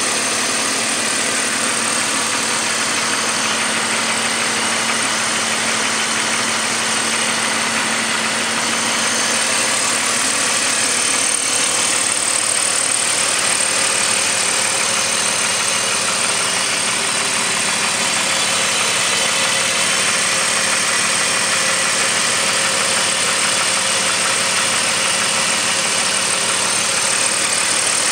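BMW M54 straight-six engine running steadily with a knocking noise in the background, the fault the owner is recording.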